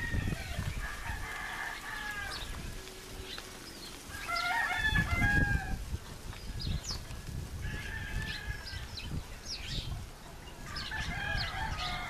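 Roosters crowing, four crows one after another, with hens clucking between them.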